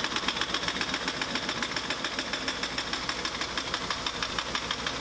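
Pneumatic 1-inch impact wrench hammering rapidly and without pause, with a hiss of air, as it strains at the large self-locking nut on a tank track's center guide. The gun is not yet oiled and is short of air pressure.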